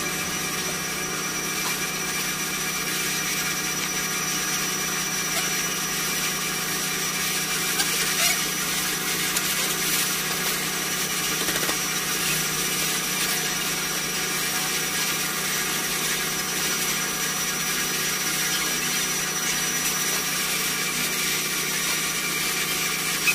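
A motor running steadily, with a thin high whine over a low hum.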